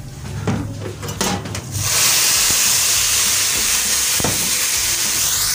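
Hot milk poured into a pan of vermicelli fried golden in ghee: a sudden loud sizzling hiss starts about two seconds in as the milk hits the hot fat, and it holds steady. Before it come a few light knocks.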